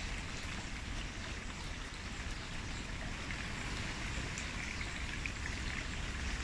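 Wind rustling through palm fronds and garden foliage, a steady hiss with faint small crackles, over a weak low rumble of wind on the microphone.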